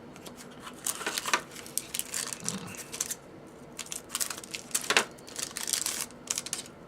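Crinkling and rustling of a hockey card pack wrapper and cards being handled, in a string of short, irregular bursts, loudest about five seconds in.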